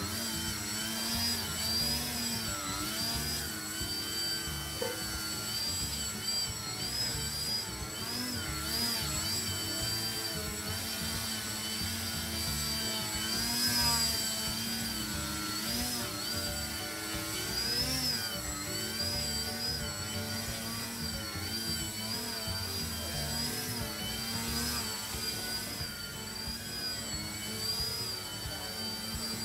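Small foam 3D RC airplane's electric motor and propeller whining while it hovers nose-up, the pitch wavering up and down as the throttle is constantly worked to hold the hover.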